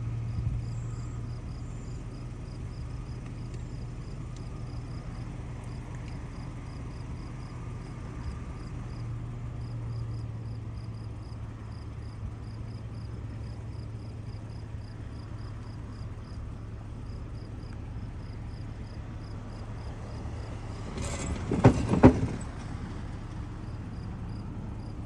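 Outdoor ambience with a steady low hum and insects chirping in an even, fast rhythm. A little after twenty seconds in, a car passes close by in a short, loud rush with a few sharp knocks.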